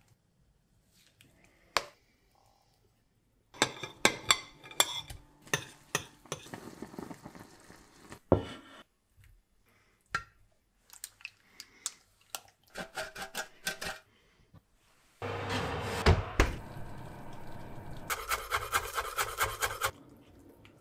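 Kitchen utensil sounds: metal utensils clink, knock and scrape against a pot and a ceramic baking dish in short separate bursts. A steady hissing rush follows about fifteen seconds in, with light regular ticks over it near the end.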